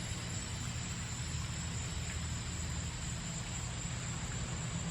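Steady outdoor background: an even hiss under a low hum and a faint steady high whine, with no distinct events.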